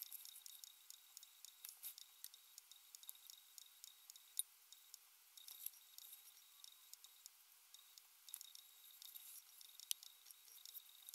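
Near silence: faint hiss with scattered, irregular faint clicks and ticks.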